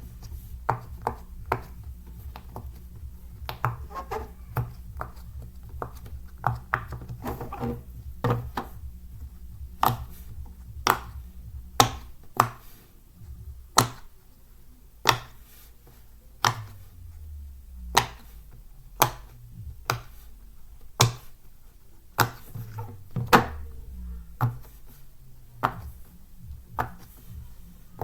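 Silicone pop-it fidget toy having its bubbles pressed, giving sharp pops at uneven intervals: quick clusters in the first half, then about one pop a second. A low steady hum underlies the pops for the first twelve seconds or so.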